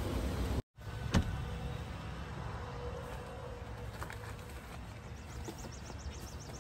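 Outdoor evening background with a steady low hum of distant traffic and one sharp knock about a second in. From about five seconds in, an insect starts chirping rapidly and regularly, about five high chirps a second.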